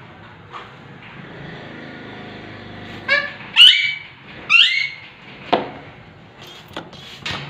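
Alexandrine parakeet giving three loud calls in quick succession about halfway through, each sliding upward at its start. A sharp knock and a few lighter clicks follow.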